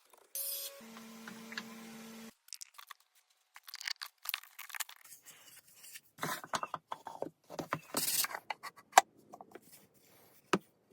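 A small power tool runs with a steady hum for about a second and a half, then cuts off. After that come scattered clicks, taps and scrapes of wooden pieces being handled and fitted together.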